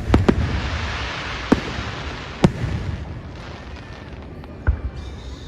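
Aerial fireworks exploding: three sharp bangs in quick succession at the start, then single bangs about a second and a half, two and a half, and nearly five seconds in. A hiss follows the opening bangs and fades away over about three seconds.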